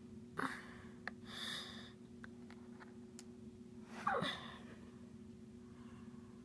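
Soft breaths or gasps and a few small clicks of handling, over a steady low hum.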